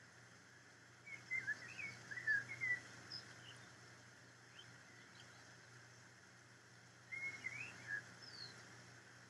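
A small songbird singing: two bursts of quick, warbling chirps, one about a second in and one about seven seconds in, with a few faint single chirps between, over a faint steady hiss.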